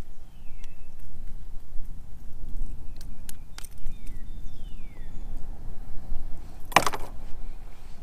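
Handling noise as an angler holds a freshly caught smallmouth bass in a kayak: a few sharp clicks, then one short, loud rustling burst near the end, over a steady low rumble.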